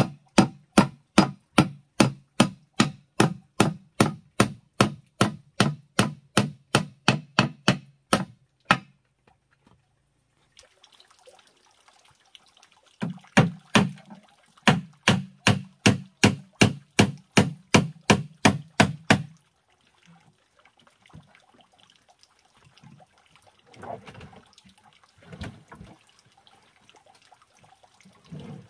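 Hammer nailing wooden roof planks onto a pigeon nest box: fast, even blows about three a second for some eight seconds, a pause of a few seconds, then a second run of blows of about six seconds. After that come only a few light knocks of the wood being handled.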